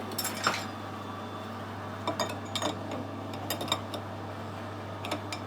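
Light metallic clinks and clicks in small clusters as tools and the workpiece are handled at a metal lathe, over a steady low hum.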